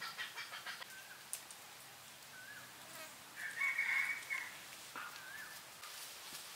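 A rooster crows once, a little past the middle, a held call of about a second, over a few short bird chirps.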